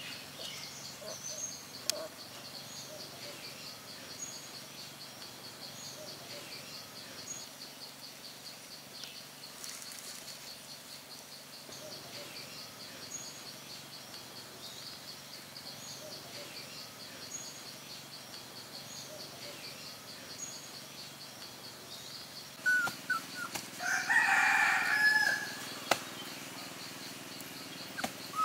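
Rural outdoor ambience: a steady high buzz with small bird chirps every second or so. Near the end a rooster crows once, loud and drawn out over about two seconds.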